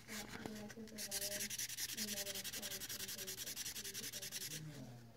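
2000-grit sandpaper rubbed in quick, even back-and-forth strokes over a G10 knife handle scale, smoothing its surface. The rasping starts about a second in and stops shortly before the end.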